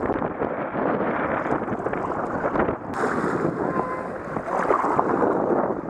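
Wind buffeting the microphone in a loud, uneven rush, over water splashing and sloshing around a paddled kayak on choppy water.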